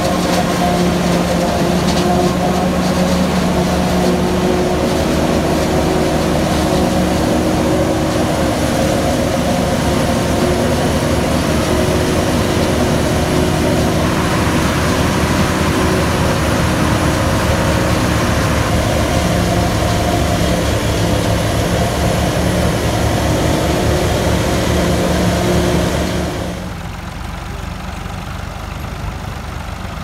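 New Holland FX48 forage harvester running steadily under load, its engine and chopping header working through standing maize for silage. A few seconds before the end the sound drops abruptly to a quieter engine running.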